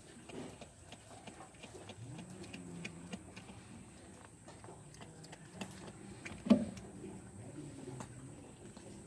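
A civet chewing and crunching a mouse: scattered small wet clicks, with one sharp knock about six and a half seconds in.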